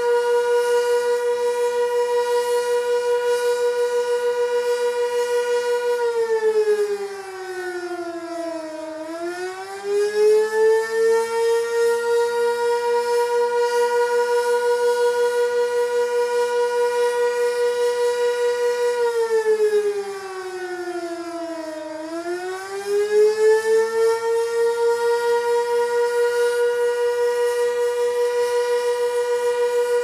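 Sentry 16V1T-B mechanical outdoor warning siren sounding its attack signal. A steady, loud tone sags in pitch for about three seconds and climbs back up, twice.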